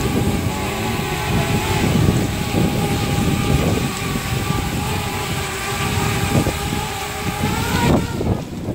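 DJI Spark quadcopter's propellers whining steadily as it flies in heavy rain, over a constant hiss of rain and wind noise; near the end the whine rises in pitch.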